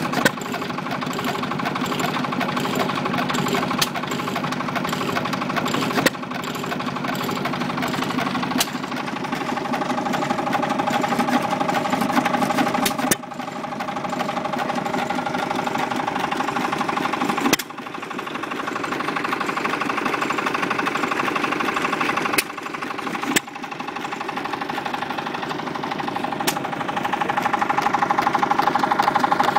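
Moteur Japy 12E vertical open-crank hit-and-miss engine running and driving a 1914 Guy & Mital plunger wine pump: a steady, fast mechanical clatter with a few sharp knocks.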